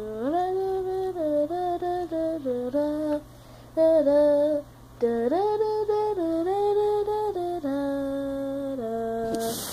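A person humming a slow wordless tune: held notes stepping up and down in pitch, with two short pauses for breath partway through.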